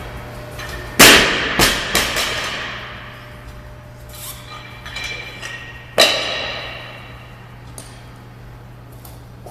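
A loaded barbell dropped to the floor twice, about five seconds apart, metal clanging on impact. The first drop bounces with three quicker knocks, and both leave the bar and plates ringing as they settle.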